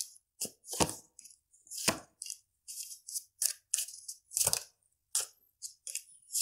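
A deck of tarot cards shuffled overhand between the hands: a run of short, irregular swishes and slaps, a few each second, with cards laid down on a wooden desk near the end.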